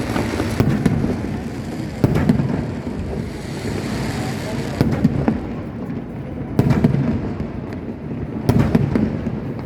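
Fireworks bursting: about five loud bangs, roughly two seconds apart, each with a low rumbling tail, over continuous crackling.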